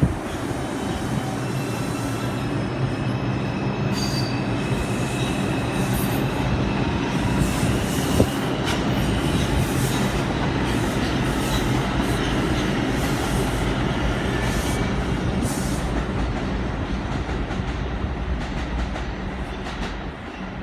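R142 subway train running along the track, with wheels squealing in thin high tones and clicking over rail joints. Its rumble fades away near the end.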